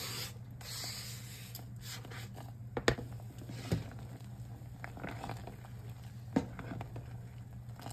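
Chopped dry fruits tipped from a plate into a steel saucepan of hot milk, then a spoon stirring the pot with a few sharp knocks against its side, over a steady low hum.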